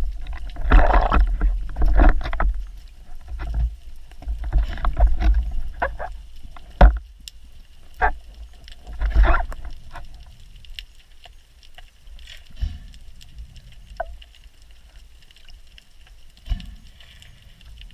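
Water rushing and sloshing against an underwater camera as a freediver moves. There are several sharp knocks and clicks, the clearest about seven and eight seconds in. The rushing dies down to a faint hiss in the second half, with a few soft bumps.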